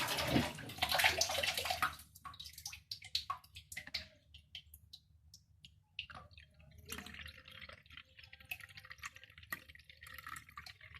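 Water sloshing for about two seconds, then scattered drips and light patters as freshly washed lavender sprigs are left to drain.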